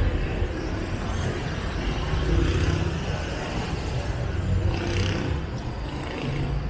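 Diesel engine of a Mercedes-Benz low-floor city bus idling steadily with a low rumble while the bus stands at a stop.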